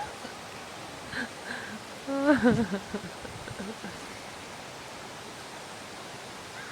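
Steady rush of flowing floodwater, with a brief wavering voice-like call about two seconds in.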